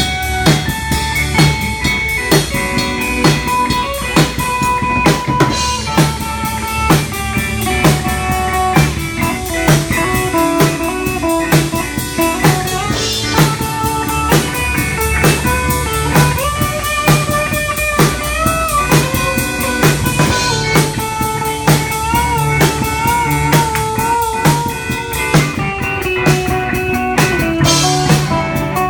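Live rock band playing: a drum kit keeps a steady beat under bass and electric guitars, with a lead line of sliding, wavering notes.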